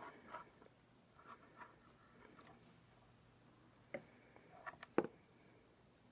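Faint handling noises of small electrical wires being worked together by hand: light rustling, then a few short clicks, the sharpest about five seconds in.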